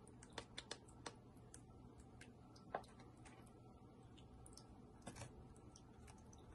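Near silence broken by faint, scattered clicks and taps of miniature kitchen utensils: a tiny knife against a small plastic cup and a small metal tray. There are a few quick clicks in the first second, a sharper one midway, and a couple more around five seconds in.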